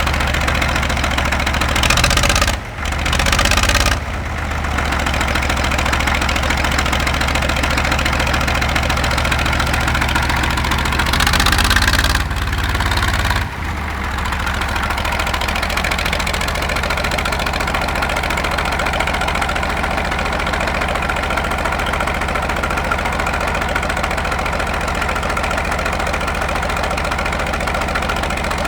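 Engine of a 1950 Caterpillar D6 crawler running steadily. Its sound changes briefly twice, a couple of seconds in and again about halfway, where it cuts back suddenly.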